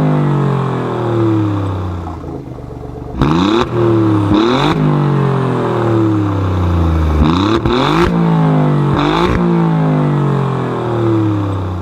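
A pocket bike's small 50cc engine being revved in quick pairs of throttle blips: each time the pitch leaps up sharply, then sinks slowly back toward idle over a few seconds.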